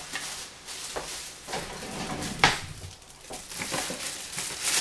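Scattered clinks and knocks of dishes and utensils being handled at a kitchen sink, with one sharp clack about halfway through.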